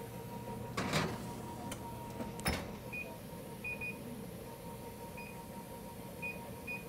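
A metal baking pan slid into a wall oven and the oven door shut with a knock, followed by a series of short high beeps from the oven's electronic keypad as the bake time is set.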